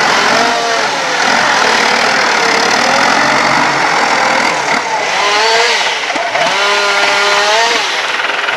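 Forestry tractor's diesel engine labouring as it drags a heavy log on chained tyres, its pitch rising and falling with the throttle.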